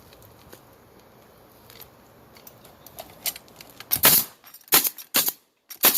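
Roofing nail gun firing shots into asphalt shingles: a few sharp, quick shots in the last two seconds, the first the loudest.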